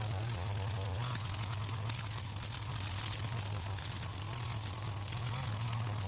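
String trimmer (strimmer) running steadily while its line cuts long, wet grass: a low motor tone under a continuous high hissing swish.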